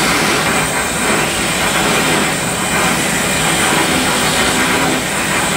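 Steady rushing noise of a glassworker's bench torch flame as glass rods are heated and worked in it.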